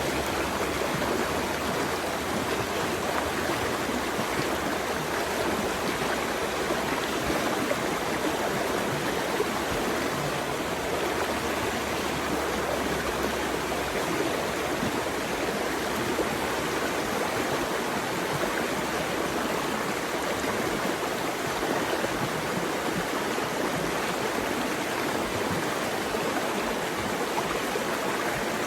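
Running water rushing steadily, an even unbroken wash of sound. A faint low rumble underneath drops away about halfway through.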